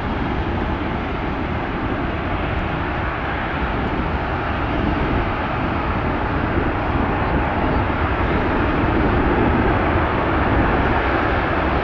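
Airbus A350-1000's Rolls-Royce Trent XWB-97 turbofans at taxi power: a steady jet rumble and hiss that grows a little louder toward the end as the airliner rolls past.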